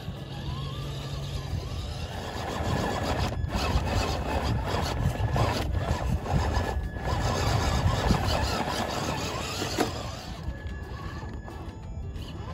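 Traxxas TRX-4 RC rock crawler climbing: its electric motor and gears whining under load, tyres scrabbling and clicking on rock, over a low rumble. Louder from about two seconds in, easing off near the end.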